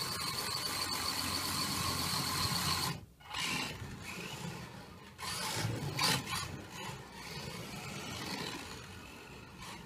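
Small electric drive motor of a 1:20 CCP Real Drive toy RC car whirring as the car drives, its tyres rasping on rough concrete. A steady whine breaks off about three seconds in. The sound then comes back uneven and scraping.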